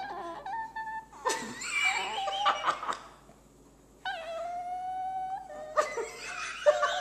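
Small dog making high-pitched whines and squeals while tugging a toy in a tug of war with another dog. A single long, steady whine comes about four seconds in.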